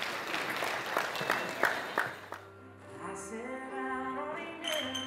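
Guests applauding, with a few sharp clinks near the middle. The applause fades and a song with singing begins about two and a half seconds in.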